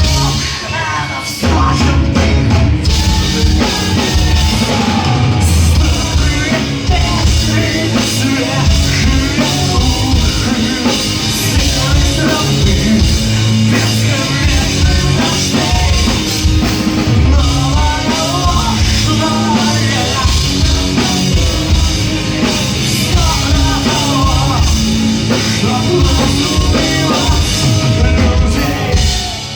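Rock band playing live at full volume: distorted electric guitars, bass and drum kit, with a wavering melodic lead line over the top. The band stops abruptly at the very end.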